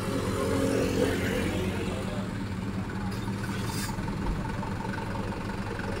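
Heavy truck engine running low and steady as the truck moves slowly forward past the listener.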